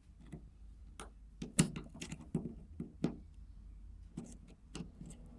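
Scattered light clicks and knocks of hands and parts working inside a Renault electronic parking brake unit as the small white cable retaining tab is pushed out, the loudest click about one and a half seconds in.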